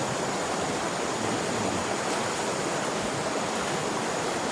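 Steady rushing water, an even unbroken hiss.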